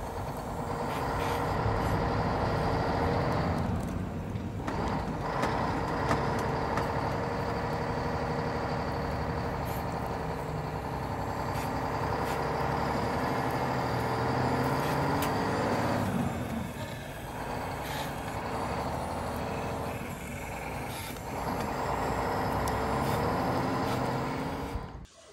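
Small electric drive motor of a cardboard radio-controlled toy fire truck whining steadily as it drives over dirt. The whine drops away briefly about four seconds in and twice more later on, then cuts off abruptly near the end.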